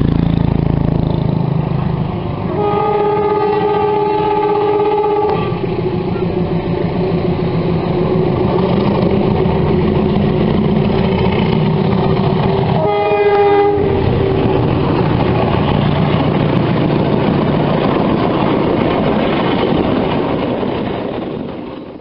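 Railway locomotive horn sounding a chord of several tones: one blast of about three seconds a few seconds in, and a short blast about halfway through, over the steady running noise of the train, which fades near the end.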